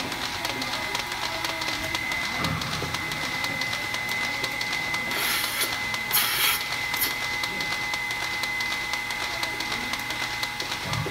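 Milking-parlour machinery running: a steady hum with a continuous high whine and rapid ticking, typical of milking-machine vacuum and pulsators. About five to seven seconds in come three short, loud hisses of air.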